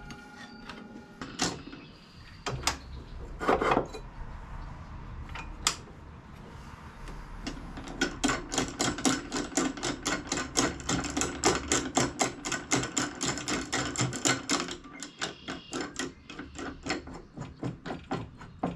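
Scattered knocks and clicks of aluminum T-track being handled against a miter saw's fence. About eight seconds in, a rapid, even ticking of about four clicks a second starts, runs for several seconds and thins out near the end.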